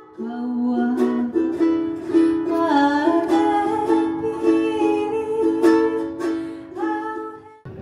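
Background music: a light tune of plucked-string notes that cuts off suddenly near the end.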